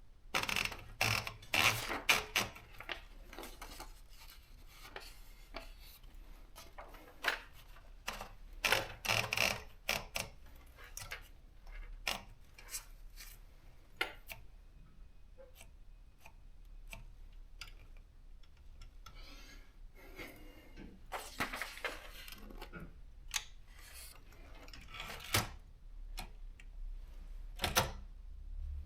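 Privileg JP 1 typewriter being typed on: keys striking in irregular bursts of rapid clacks, with short pauses and scattered single strokes between.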